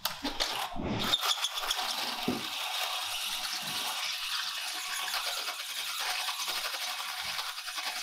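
Cordless drill driving a long bit down into the top of a TL-15 burglary safe. It drills steadily from about a second in, a dense, high scraping whir.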